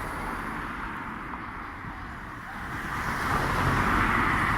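Road traffic noise, a steady hum of passing vehicles that swells about two-thirds of the way in, as a vehicle draws near.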